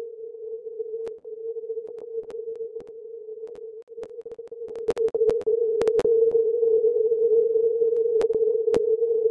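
Shortwave receiver audio of 40 m CW through a 50 Hz-wide filter: a wavering tone near 450 Hz, the Morse signal and band noise squeezed into the narrow passband. It is broken by sharp clicks of impulse noise, with the wideband noise blanker switched off, and grows louder about five seconds in.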